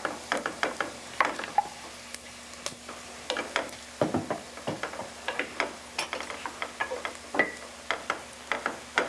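Wooden spoon stirring vegetables frying in a skillet, scraping and knocking against the pan in irregular clicks and scrapes.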